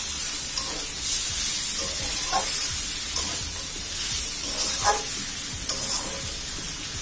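Chopped ash gourd greens sizzling in oil in a metal karahi while a metal spatula scrapes and knocks against the pan as they are stirred. The sharpest scrape comes about five seconds in.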